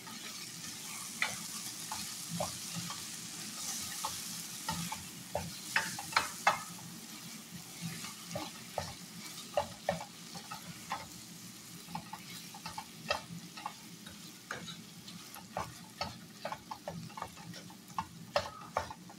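Stir-fried chicken sizzling in a frying pan while a wooden spatula stirs and scrapes through it, knocking against the pan in quick, irregular clacks. The sizzle is loudest in the first few seconds and settles lower after that.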